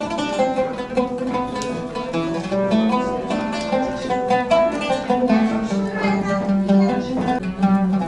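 An oud played solo: a melody of plucked notes over a held low note.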